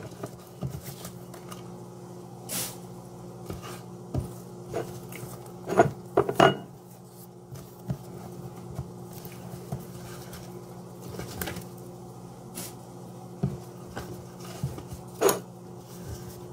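Scattered knocks and clicks of kitchen utensils and hands working on a wooden cutting board, with louder clatters about six seconds in and again near the end, over a steady low hum.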